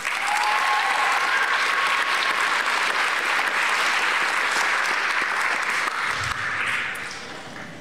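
Audience applauding, starting at once and fading near the end.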